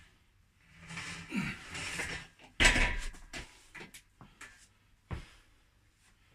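A hard breath out with a short grunt, then a loud metal clank about two and a half seconds in from the pulldown bar, its steel D-handles and the swivel hook it hangs from. A few lighter clinks and knocks follow as the bar settles, and one more knock about five seconds in.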